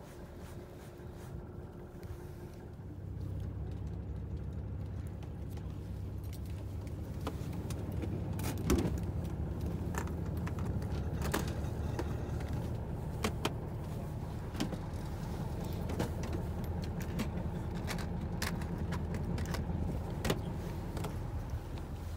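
Fishing boat's engine running in a low, steady drone that grows louder about three seconds in, with scattered sharp clicks and knocks over it.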